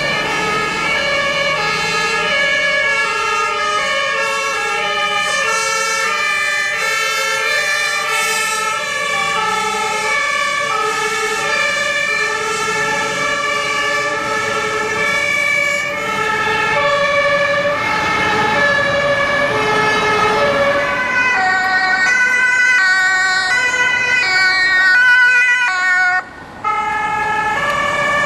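Several German two-tone emergency sirens (Martinshorn) sounding at once, each alternating between its two pitches and out of step with the others, from a fire engine convoy and an ambulance driving past. The sound briefly cuts out about two seconds before the end.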